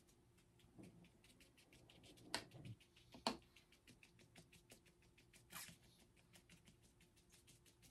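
Faint, quick tapping and scratching of a paintbrush dabbing paint onto paper to make grass, about six light taps a second, with a few louder taps now and then.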